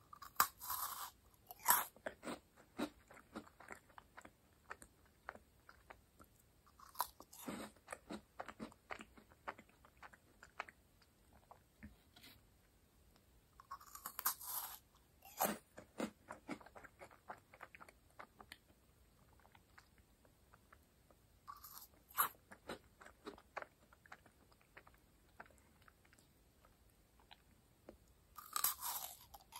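Close-miked eating of crisp meringue cookies: each fresh bite gives a loud brittle crunch, followed by a run of small crackling chews as the meringue breaks up. New bites come about every seven seconds, five in all.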